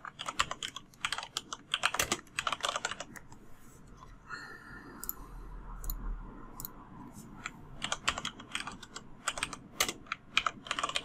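Typing on a computer keyboard: two bursts of rapid keystrokes with a pause of a few seconds between them.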